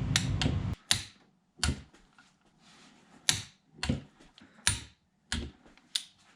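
Torque wrench clicking sharply about nine times at uneven intervals as the cylinder head bolts of a Kawasaki Mojave 250 ATV engine are brought up to a first pass of 20 lb-ft. A low background hum cuts off under a second in.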